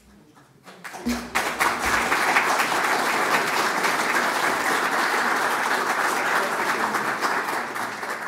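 Audience applauding: the clapping starts about a second in and then holds steady.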